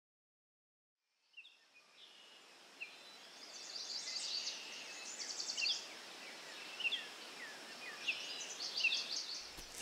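Forest ambience fading in after a second or so of silence: many birds chirping and trilling over a soft, even hiss.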